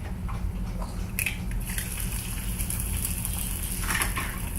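An egg dropped into a pan of hot butter and vegetable oil, sizzling as it starts to fry: a sharp hiss that starts suddenly about a second in and carries on, over a steady low hum.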